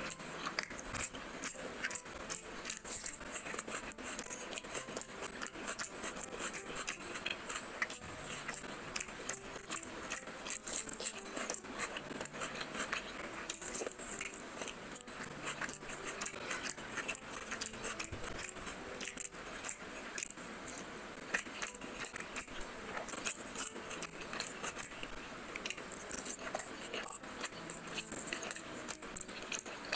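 Close-miked eating: chewing fried fish with the mouth, a dense run of quick wet clicks and smacks throughout.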